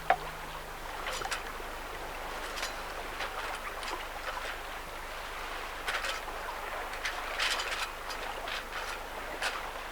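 Water rushing past and splashing against the hull of a small sailing boat under way, with irregular slaps of spray every second or two and a sharp knock right at the start.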